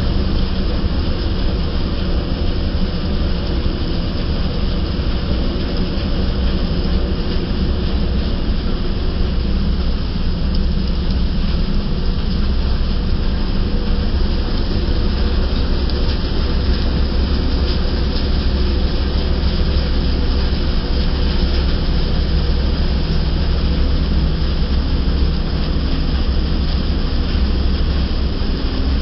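Wheat thresher running at steady speed while threshing wheat: a loud, continuous mechanical drone with a deep hum under the noise of the drum and the straw.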